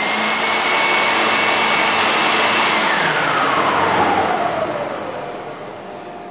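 Electric leaf blower running at full speed with a steady high whine, then switched off by its timer about three seconds in, the whine falling in pitch as the motor winds down.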